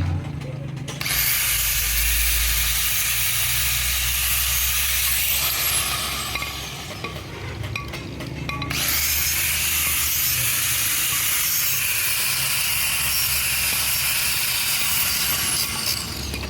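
A handheld power tool running in two long spells with a short lull between them: the first starts about a second in, and the second starts about nine seconds in and stops near the end.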